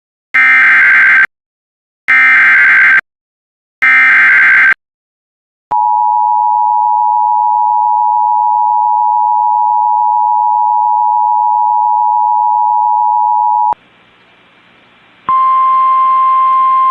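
Emergency Alert System tones: three short bursts of SAME digital header data, each about a second long, then the two-tone attention signal held steady for about eight seconds. It cuts off abruptly into faint radio hiss, and a single steady tone over hiss begins near the end.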